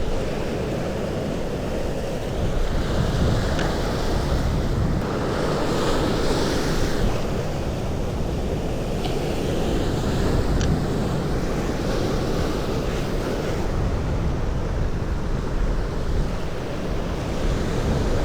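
Sea waves washing steadily against the shore, with wind buffeting the microphone and a few faint ticks.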